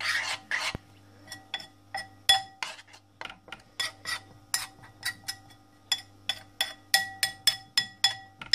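Metal spoon stirring soaked oats in a bowl, clinking against the bowl's side and bottom in quick, ringing clinks about three a second, with a few scraping strokes at the start.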